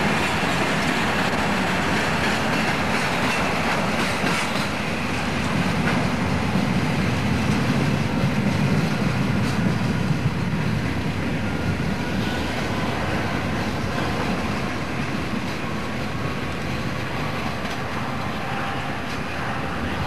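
Freight train of louvered box vans rolling past on the track, then drawing away, a little quieter over the last several seconds.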